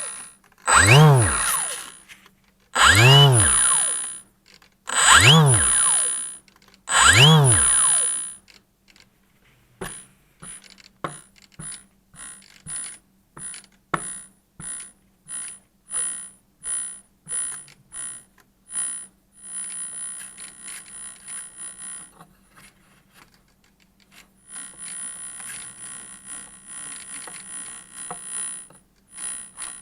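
T-Motor 2216 800KV brushless motor spun up and braked hard four times, each a whine that rises then drops. Then it is blipped in short bursts about two a second, then held in rougher, buzzing steady runs, with a thin high whine over it all. This is the odd noise that makes the owner doubt the motor.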